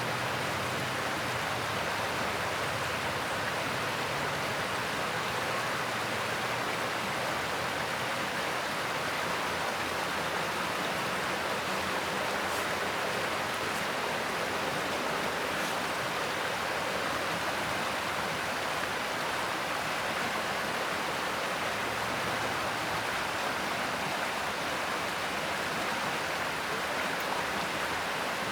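Mountain stream rushing steadily over rocks, an even, unbroken sound of running water.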